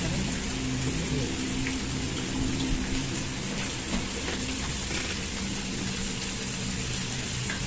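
Steady sizzling hiss of pork cooking in a samgyupsal grill pan, with a low hum underneath.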